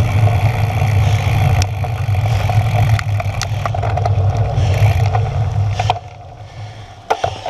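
Wind rushing over the microphone of a camera mounted on a road bike, with road noise, dying away about six seconds in as the bike slows almost to a stop; a few light clicks follow near the end.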